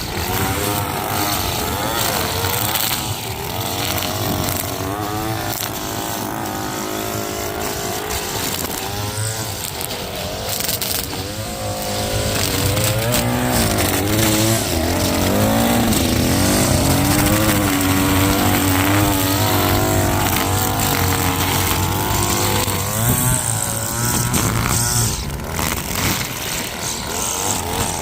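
Small gasoline engine of lawn equipment running under load, its pitch rising and falling over a steady low hum.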